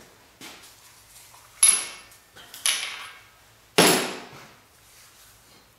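Metal tools clanking against a steel crankshaft during dismantling: three sharp metallic clanks about a second apart, each with a short high ring, the third the loudest, with a few softer knocks between.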